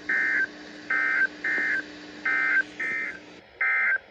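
Emergency Alert System end-of-message: six short bursts of two-tone SAME data screech, each about a third of a second long, signalling that the alert is over.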